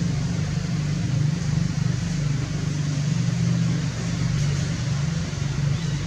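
A steady low mechanical drone, like an engine running at a constant idle.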